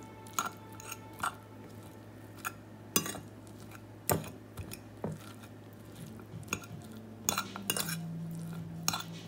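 Metal fork clinking and scraping against a plate while stirring rice and beans, in irregular sharp taps with a quick cluster of them near the end.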